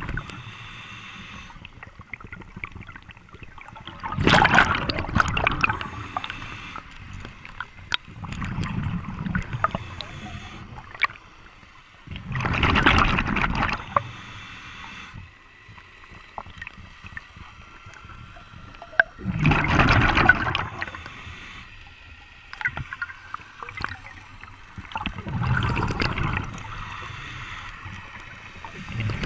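A scuba diver breathing through a regulator underwater: bursts of exhaled bubbles gurgling past the microphone every few seconds, with quieter breaths between them.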